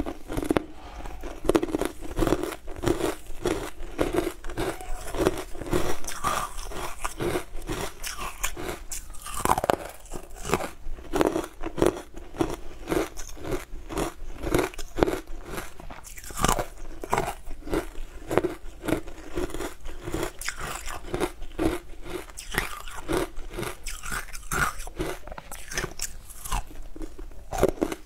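Close-up crunching and chewing of frozen white chunks coated in green powder: a steady run of crisp, icy crunches with a regular chewing rhythm.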